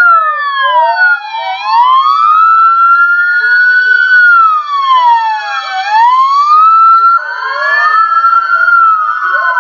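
Police car sirens wailing in slow rises and falls, with a second siren joining about seven seconds in so that the wails overlap.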